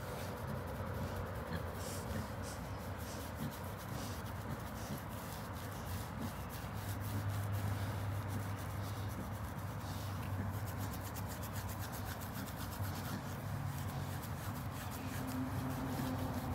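A hand rubbing and scratching a pig's coarse, bristly coat: a steady scratchy rustle.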